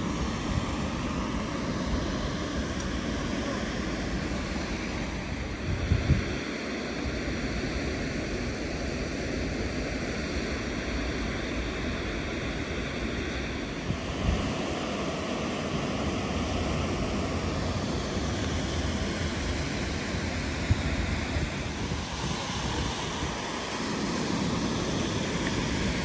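Steady rush of river water and the dam's spillway cascade, with wind on the microphone and a few brief low bumps.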